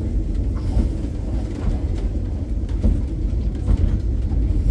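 Tram running on rails: a steady low rumble with scattered clicks and knocks from the wheels and track.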